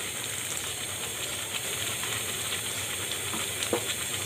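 Carrot firni (milk with grated carrot and ground rice) bubbling in a pan on a gas stove, a steady hiss with a couple of faint ticks near the end.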